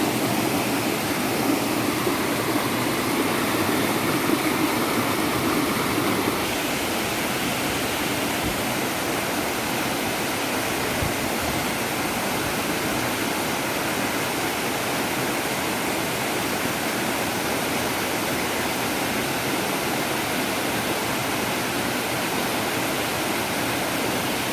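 Waterfall: a steady rush of falling water, its tone and loudness shifting slightly about six seconds in.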